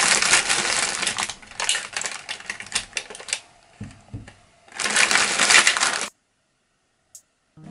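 Plastic biscuit wrapper crinkling and crackling as it is handled, in two bursts with a couple of soft knocks between them, cutting off suddenly about six seconds in.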